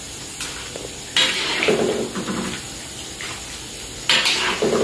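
Metal slotted spoon scraping and clattering against a wok and a wire strainer while lifting fried kuih siput out of the oil, in two bursts, about a second in and near the end, over the sizzle of the frying oil.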